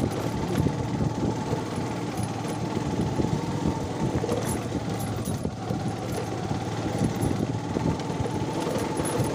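Motorcycle engine running steadily while the bike rides slowly along a rough dirt trail, with a few light clicks and knocks over the engine note.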